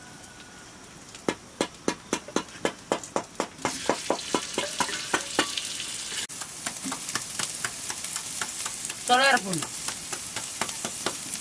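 A run of sharp metal knocks, about four a second, then about four seconds in meat goes into hot oil in a black iron kadai and sizzles, the ladle knocking and scraping the pan as it stirs. Near the end a hen gives a short squawk, the loudest sound.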